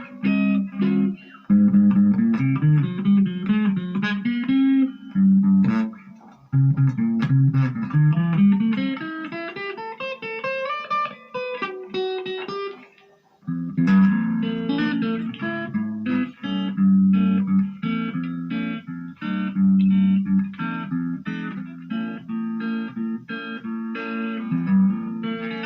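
Electric guitar played through a Marshall MG15GFX combo practice amp on its crunch channel. Single-note melodic runs for about thirteen seconds, a brief break, then a repeating low rhythm riff.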